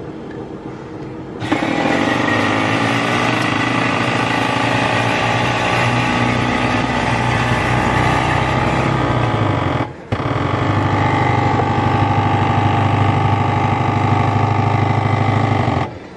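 Self-serve coffee machine running its brew cycle: a loud steady mechanical hum that starts about one and a half seconds in, cuts out for a moment about ten seconds in, then runs again and stops near the end.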